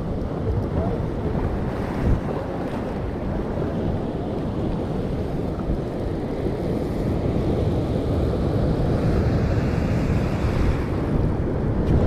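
Ocean surf breaking and washing over rock ledges, with wind buffeting the microphone. A single brief thump about two seconds in.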